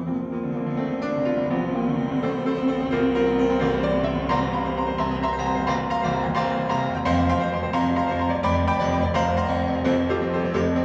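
Piano playing an instrumental interlude between sung verses of a ballad, a flowing run of notes over held chords, with deeper bass notes coming in about seven seconds in.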